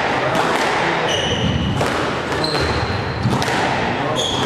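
Squash rally: a series of sharp knocks as the ball is struck by the rackets and hits the walls, with the players' shoes squeaking on the wooden court floor three times.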